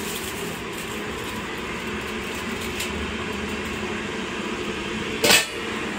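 Steady mechanical hum. About five seconds in comes one short, loud crinkling rustle, as the aluminium-foil cover is lifted off the clay cooking pot.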